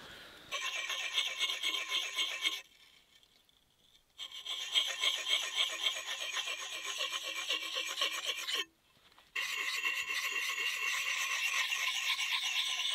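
An axe blade being sharpened by hand with a small hand-held sharpener: rapid scraping strokes in three runs, broken by two short pauses.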